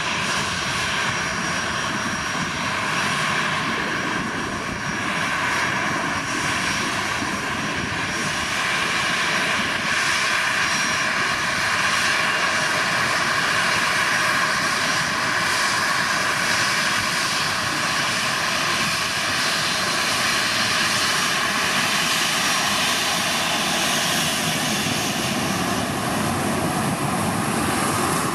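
Boeing 737-800's twin CFM56-7B turbofans running at taxi power as the jet rolls past: a steady jet whine with a thin high tone over a broad rush, a little louder through the middle.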